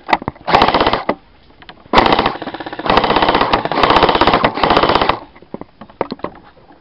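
Airsoft electric gun firing full-auto in three bursts of rapid shots: a short burst, a very short one, then a long burst of about two seconds.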